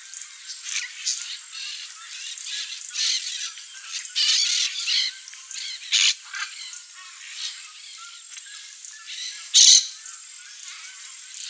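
A flock of peach-fronted parakeets giving harsh squawks and chattering calls in quick succession. The loudest calls come around the middle and once more near the end.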